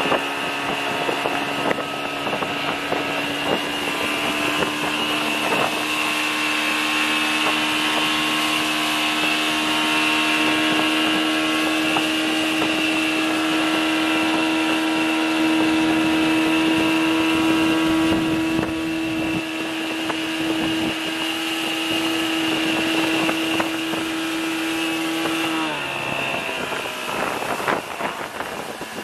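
Outboard motor on a small fishing boat running steadily under way, over the rush of water from the wake. Near the end its pitch drops as the throttle is eased back.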